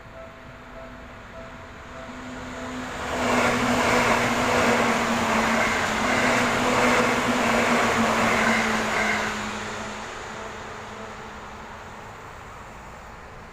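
Japanese level crossing warning bell chiming in a rapid repeating pattern while an electric commuter train passes: the train's running noise swells about three seconds in, stays loud for some six seconds, then fades away as the bell keeps ringing.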